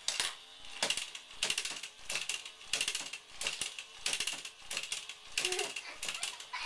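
Toy robot coin bank's mechanism clicking and ratcheting as it eats coins, in repeated pulses of rapid clicks about every two-thirds of a second.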